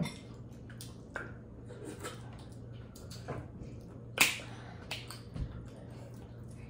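Close-up eating sounds of a seafood boil: scattered small clicks, cracks and wet smacks of shrimp and crab shells being peeled and eaten, with one sharper crack about four seconds in, over a low steady hum.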